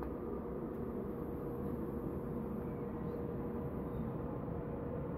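DB class 111 electric locomotive hauling regional coaches on its approach into the station: a steady electric hum over a low rumble from the train.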